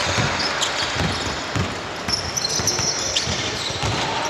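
Basketball bouncing on a court floor: a run of thuds, roughly two a second, over a steady background hubbub, with a few short high squeaks near the middle.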